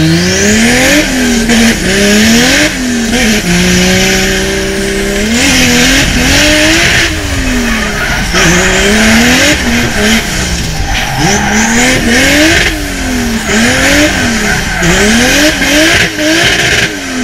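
A drift car's engine revving up and down again and again, with tyres squealing as the car slides, heard from inside the cabin.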